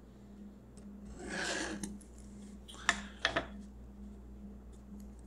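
A pen drawn along a steel straight edge on plywood, a scratchy stroke of under a second, followed a second later by three sharp clicks as the steel ruler is shifted and set down on the board.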